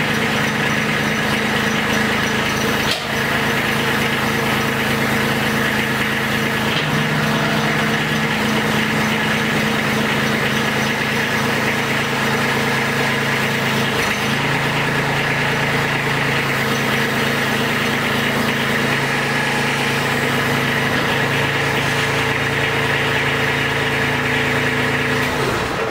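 Kubota B2301 compact tractor's three-cylinder diesel engine running steadily while the front loader bucket is raised, tilted and lowered. The engine note shifts slightly a couple of times, and there is one short knock about three seconds in.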